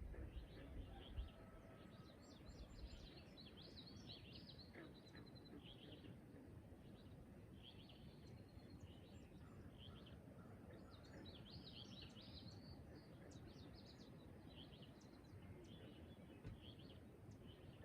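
Faint morning birdsong: many small birds chirping in short high notes throughout, over a low steady background noise.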